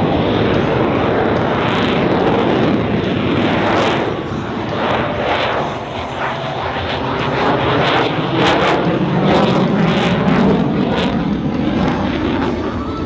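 F-22 Raptor's twin F119 afterburning turbofan engines at high power as the jet flies by: a loud, continuous jet noise with repeated crackling, most of it in the second half.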